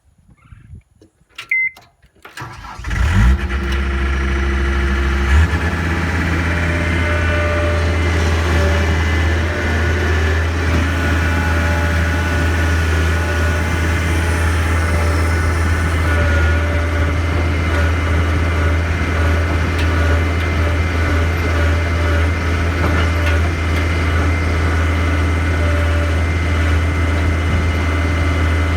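Skid steer engine starting about three seconds in, then running steadily; about two seconds later the engine note steps up as the throttle is raised.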